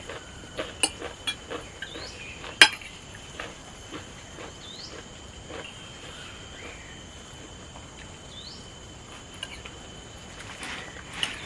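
Eating at a plate: scattered light clicks and clinks of dishes and utensils, one sharper clink about two and a half seconds in. A steady high insect trill runs underneath.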